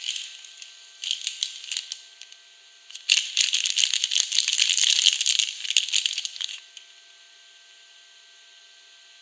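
Soap packaging being unwrapped by hand, the wrapper crinkling and rustling: two short bursts, then a louder, denser stretch of about three and a half seconds that stops abruptly.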